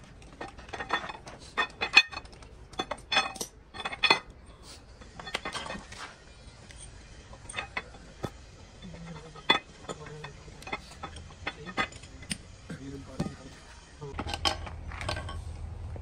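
Metal hand tools working on engine parts: a string of irregular sharp metallic clicks and taps, some ringing briefly.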